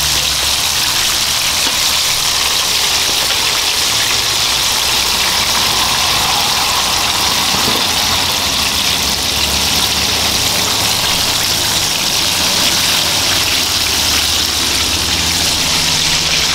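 Chicken pieces frying in hot oil in a wok, a loud, steady sizzle, with a low steady hum underneath.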